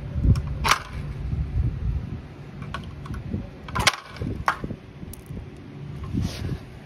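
Insulated pliers gripping and snapping components off an air conditioner's outdoor circuit board: a few sharp clicks and cracks, the sharpest about four seconds in, over a steady low rumble.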